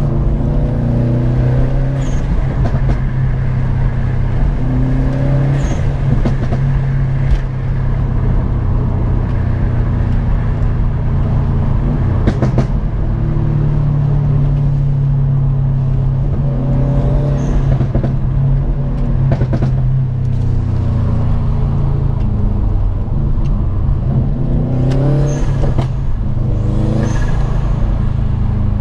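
Subaru WRX STI's remapped turbocharged 2.5-litre flat-four running under load, heard from inside the cabin while driving. The engine note rises with the revs several times and drops back between, as it accelerates and changes gear, with a few short sharp clicks along the way.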